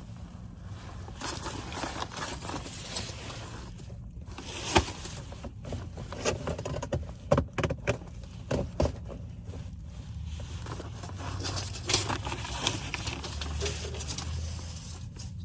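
Irregular rustling and scraping with scattered sharp knocks and clicks, the sound of someone moving about and handling materials in a cramped work space.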